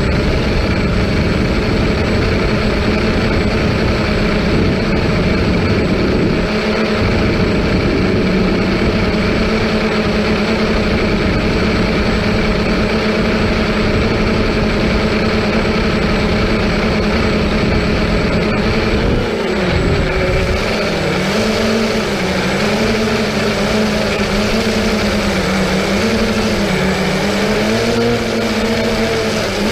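Multirotor drone's motors and propellers whirring steadily at a loud level. From about two-thirds of the way in, the pitch wavers up and down as the motor speeds change.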